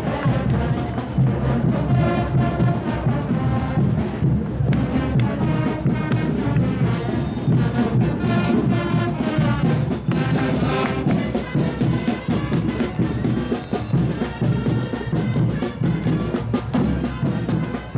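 Brass band with drums playing a salay dance tune: trumpets and other brass carrying the melody over steady bass and percussion.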